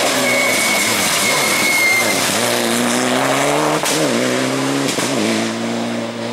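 Mitsubishi Lancer Evo IX rally car's turbocharged four-cylinder engine at full throttle as it passes close over loose gravel, tyres hissing on the stones, then pulling away with rising revs broken by two quick upshifts, about four and five seconds in.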